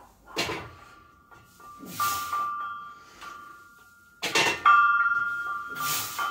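Loaded steel barbell and weight plates clanking, about five metal knocks, each leaving a ringing tone that dies away; the loudest comes a little past halfway.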